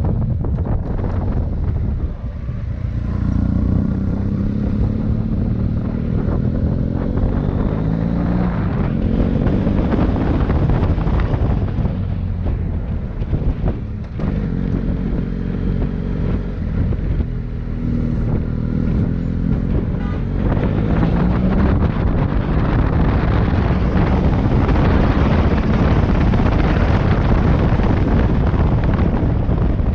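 Motorcycle engine running under way, its pitch repeatedly rising and falling with throttle and gear changes, with wind buffeting the microphone.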